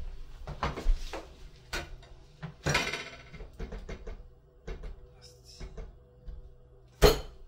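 Kitchen cupboard doors and dishes being handled: scattered clicks and bumps, a short rattling clatter about three seconds in, and a sharp knock near the end, the loudest sound.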